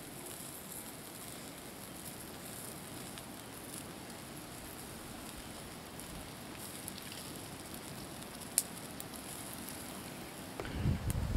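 Wood campfire burning with a steady hiss and scattered small crackles, and one sharp pop about three-quarters of the way through. A low rumbling noise comes in near the end.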